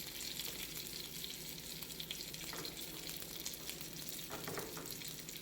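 Food frying in oil in a pan: a steady sizzle with fine crackling.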